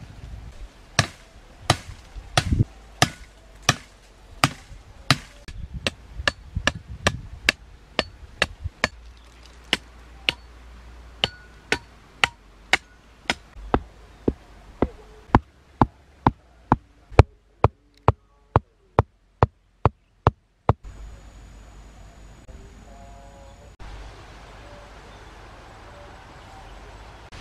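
A hand-held stone pounding wooden stakes into the ground: a long run of sharp, evenly spaced knocks, about one to two a second, getting quicker toward the end and stopping about 21 seconds in.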